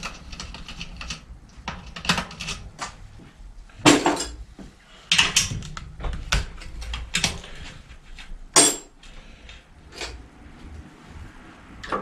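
Irregular metallic clinks and clicks of a spanner working the rear axle nut and chain tensioner of a Gazelle bicycle, loosening them to take out the rear wheel. The sharpest clinks come about four, five and eight and a half seconds in.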